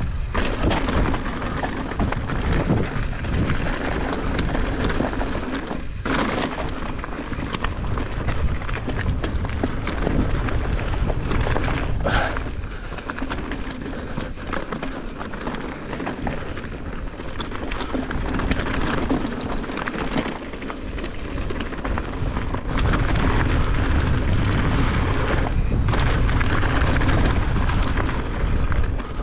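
Mountain bike descending a loose rocky trail: tyres crunching over stones and the bike rattling with many small knocks, under a steady rumble of wind on the camera microphone. It gets louder over the last few seconds.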